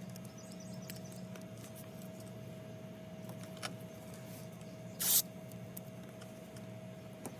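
Masking tape pulled off the roll in one short rasp about five seconds in, with small ticks and taps of hands working the tape on the car body. A steady low hum runs underneath.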